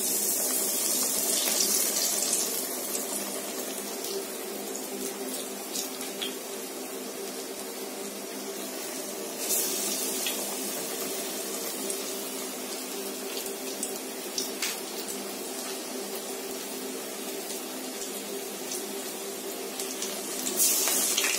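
Masala vadai (chana dal fritters) deep-frying in hot oil: a steady sizzle that swells louder at the start, about ten seconds in, and near the end.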